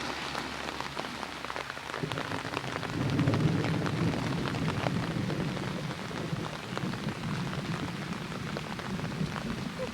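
Heavy rain falling, with many small drop hits close by, and a low rumble of thunder that rolls in about two seconds in, swells, and lingers.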